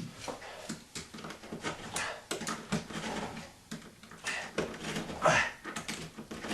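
Blade scraping and cutting into drywall as it is scored: a run of short clicks and scratches, with a longer scraping stroke that drops in pitch near the end.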